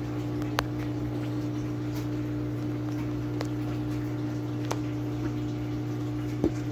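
Steady hum of an aquarium air pump driving sponge filters, with a few faint clicks.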